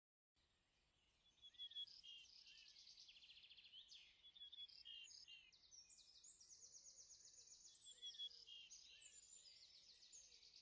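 Faint outdoor chorus of insects, crickets or katydids trilling in rapid high pulses, with a few soft bird chirps. It begins about a second in, after a moment of silence.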